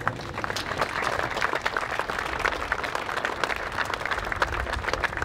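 A small crowd applauding, many hands clapping at an even level.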